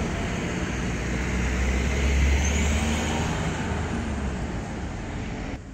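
City street traffic: a passing vehicle's low rumble swells about a second in, peaks around two seconds and fades out by about four seconds, over steady street noise.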